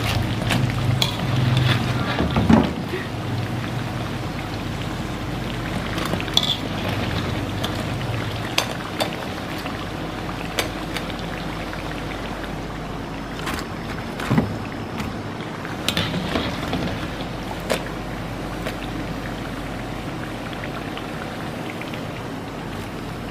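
Banana fritters deep-frying in hot oil in a metal wok, a steady sizzle. Scattered clinks and scrapes come from a steel slotted ladle against the wok as the fritters are turned and lifted out.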